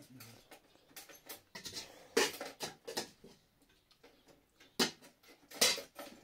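Eating sounds from a shared meal: scattered clicks and scrapes of hands and utensils against plates, with a few louder scrapes.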